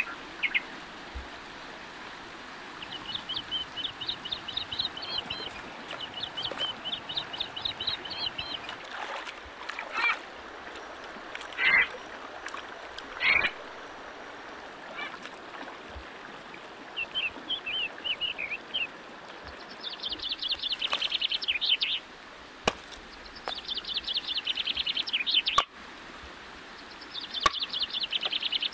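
Frogs calling: repeated trains of rapid, high clicking pulses, each a second or two long, over a steady faint hiss. A few louder short sounds come near the middle.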